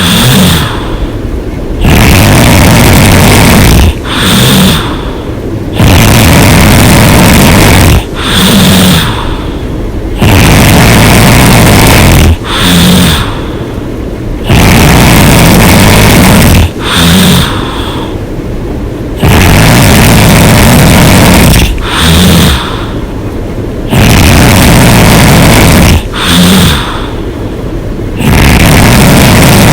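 A woman snoring loudly and hard with her mouth open. Each breath brings a long, loud snore, then a shorter, softer sound, and the cycle repeats about every four seconds, seven times over.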